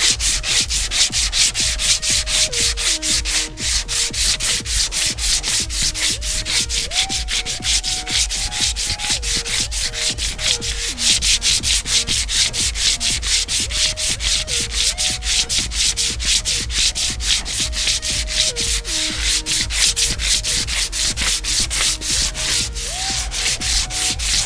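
80-grit sandpaper on a 16-inch hand sanding block rasping back and forth over cured Bondo Hair fibreglass-reinforced body filler, in quick, even strokes about four a second, knocking down the rough, high spots.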